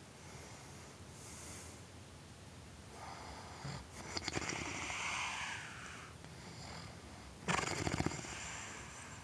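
Loud snoring from a sleeper: a long rasping snore about three seconds in, then a shorter, louder rattling snore about seven and a half seconds in.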